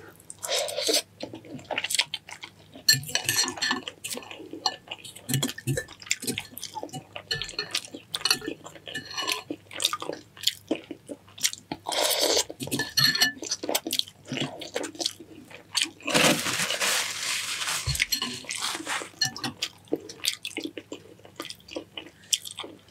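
Someone eating a bowl of noodle soup: a spoon clicking and clinking against the bowl, with mouth and eating sounds in between. A denser, noisier stretch of about three seconds begins about two-thirds of the way in.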